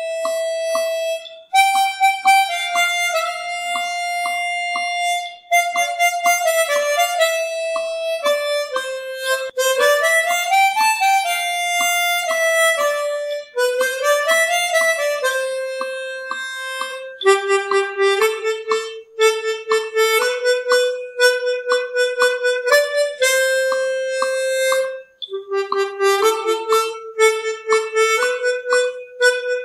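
Background instrumental music: a sustained melody that holds notes and glides between them, over a steady rhythmic plucked accompaniment.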